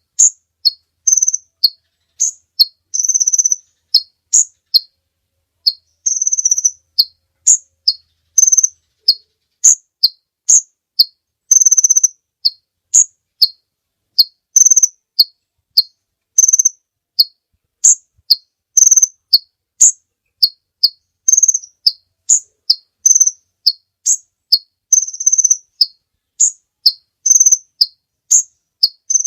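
Kolibri ninja sunbird singing: a continuous string of short, high, thin chirps about one or two a second, broken by a few longer buzzy notes.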